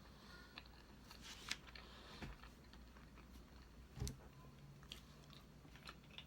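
Faint close-miked sounds of someone eating cake: soft chewing and small wet mouth clicks, with a sharper click about a second and a half in and a dull knock about four seconds in.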